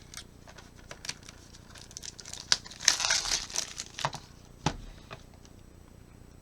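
Packaging being cut open with a knife: crinkling and tearing, densest about three seconds in, with scattered small clicks and one sharp knock a little later.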